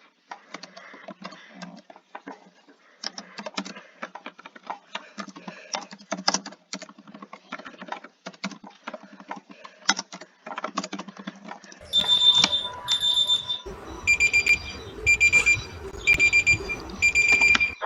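Rapid, irregular clicking for about twelve seconds, then an electronic alarm beeping: two high beeps followed by five slightly lower beeps, about one a second.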